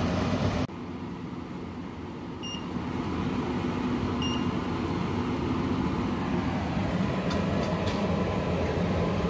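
Water boiling hard in a saucepan for a moment, then the touch controls of a Bosch induction hob give two short beeps, about two seconds apart, as a finger presses them, over a steady low hum.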